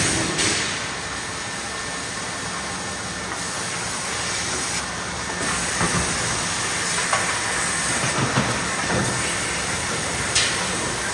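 Steady hissing noise of forging-plant machinery, with a few light knocks.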